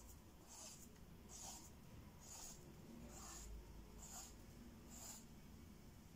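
Faint scratching of a pencil on paper in short, even strokes, about one a second, as fine lines are drawn.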